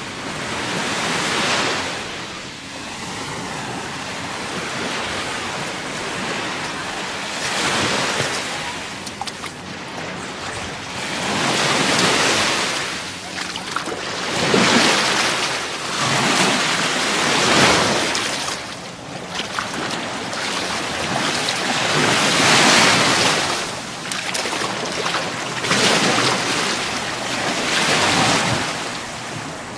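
Gulf of Mexico surf breaking and washing up the beach, the sound of the water swelling and falling back every few seconds.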